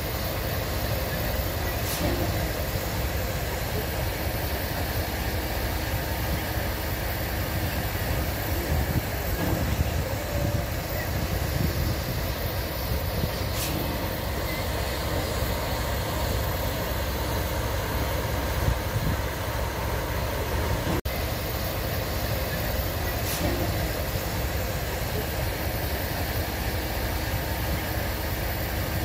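Steady hiss of steam escaping from narrow-gauge steam locomotive 609.76, over a continuous low rumble.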